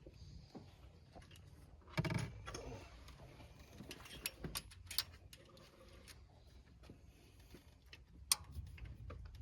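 Hand tools and metal engine parts clinking and tapping during work under the hood: scattered small metallic clicks and knocks, with a louder clunk about two seconds in and a sharp click near the end.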